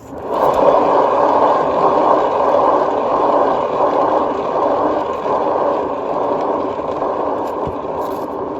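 Handheld hair dryer switched on and blowing steadily: a loud, even rush of air with a faint motor hum, starting abruptly.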